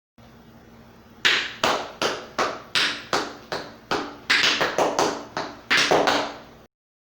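Tap shoes striking a hard floor: a run of about fifteen sharp metal taps in an uneven rhythm, roughly two to three a second, starting about a second in.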